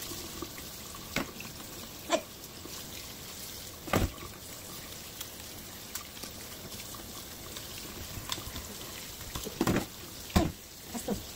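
Kitchen tap running steadily into a stainless steel sink as live crabs are rinsed and scrubbed under it, with a few sharp knocks as the crab is handled, the loudest about four seconds in and two near the end.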